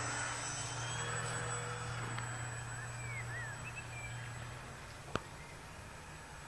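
Radio-controlled aerobatic model plane's motor and propeller droning, fading as the plane flies off into the distance and dying away about five seconds in. A few faint bird chirps a few seconds in and a single sharp click about five seconds in.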